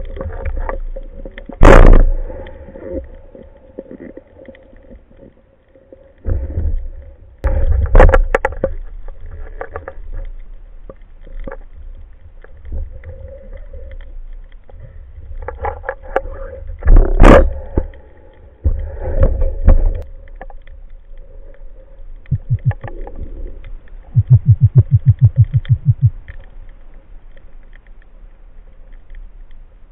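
Muffled water sloshing and handling noise picked up by a camera in an underwater housing on a speargun, with several sharp loud knocks against the gun and housing while a speared fish is handled. A faint steady hum runs underneath, and about 24 seconds in there is a quick run of low clicks, about ten a second, lasting two seconds.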